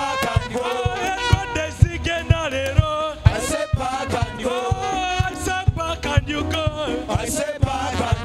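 Live gospel praise music: a band playing a steady beat of about two drum hits a second, with a group of men's voices singing over it.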